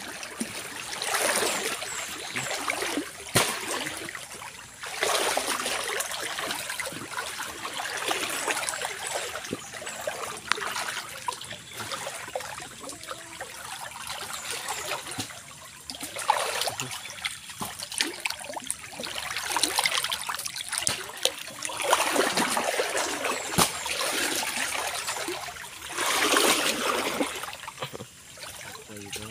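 Water trickling and splashing in uneven surges that swell and fade every few seconds, with a few sharp clicks among them.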